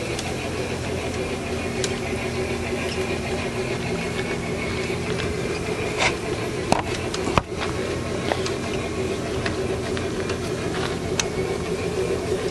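Large-scale Bachmann three-truck Shay model locomotive and its freight cars running on garden-railway track: a steady motor-and-gear whir with wheels rattling on the rails. A few sharp clicks come near the middle.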